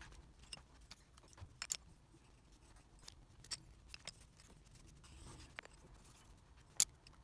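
Scattered light clicks and taps of a pencil and hand on a spiral notebook page, with one sharper click near the end.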